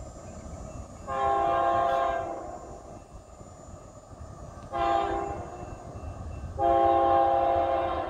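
Air horn of an approaching Canadian Pacific freight train led by a GE AC4400CWM locomotive, sounding a chord in three blasts: long, short, then long, with the last still sounding at the end.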